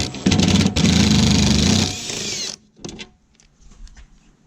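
Power drill running with a 10 mm socket for about two and a half seconds, with a short break under a second in, then stopping.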